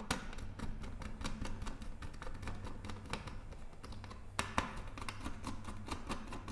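Small plastic clicks and taps of hands working a modular switch board while wiring its switch terminals, a steady patter with one sharper knock about four and a half seconds in.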